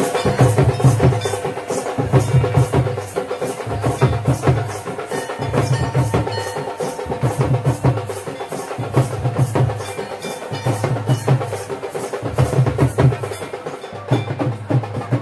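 Traditional folk drums and cymbals played in a fast, driving rhythm, with a deep drum pattern coming round about once a second under quick rapid strokes.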